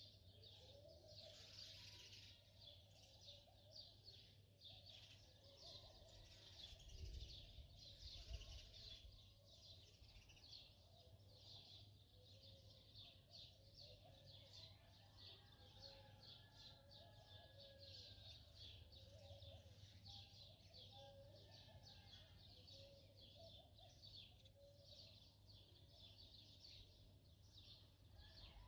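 Faint sizzling and crackling of butter and oil in a pot as whole spices and then rice are fried, with a couple of soft low thuds about seven to eight seconds in.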